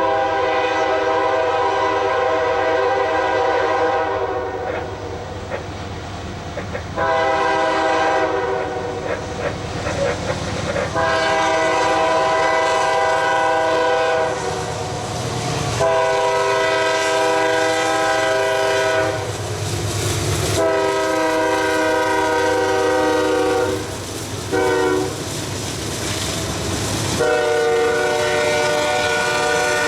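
Diesel freight locomotive's multi-chime air horn blowing a series of long blasts over the rumble of the train on the rails. Near the end it sounds long, short, long: the close of the long-long-short-long grade-crossing signal.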